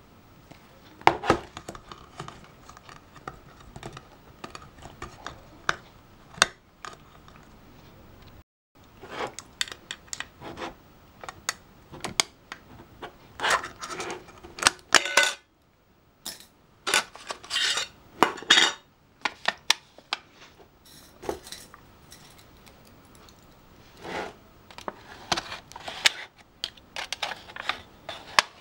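A metal milk-powder tin and its plastic lid being handled: irregular clicks, knocks and scrapes as the tin is turned over and the lid is worked off, busiest around the middle.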